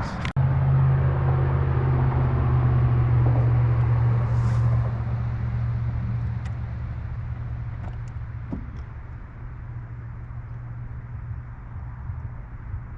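Boat outboard motor running steadily with a low hum, easing off from about five seconds in and settling quieter.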